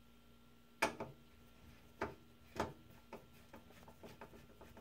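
Screwdriver tightening a metal screw that mounts a Corsair H60 water cooler's radiator to the case: a few faint, irregular clicks and ticks, the clearest about a second and two to two and a half seconds in, then lighter ticks.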